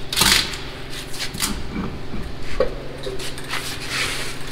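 Metal clanks and knocks of a semi-trailer dual wheel and tire being worked off the hub with a long-handled wheel dolly, over a steady low hum.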